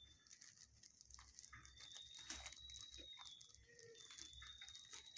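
Faint sounds of a long-haired shepherd-type dog moving about a kennel: scattered light ticks and scuffs of its claws and sniffing on the concrete floor. A faint steady high-pitched tone sits underneath and breaks off a few times.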